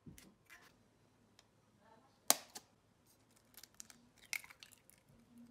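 A second egg being cracked: one sharp knock of the shell a little over two seconds in, then faint crackling clicks as the shell is broken open and pulled apart over the bowl.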